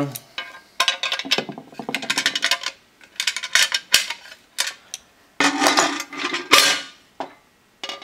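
Metal clinks and scraping as slip-joint pliers grip and turn the nut that tightens a replacement metal shaft into a powder-coated metal exercise-wheel plate. A run of short clicks is broken by two longer stretches of scraping, about a second in and again past the middle.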